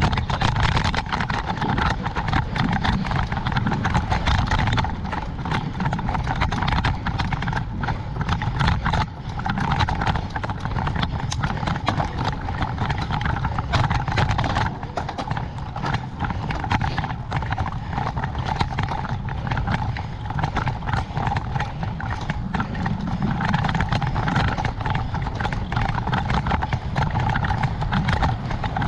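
Bicycle riding noise: a dense, irregular run of clicks and rattles over a steady low rumble.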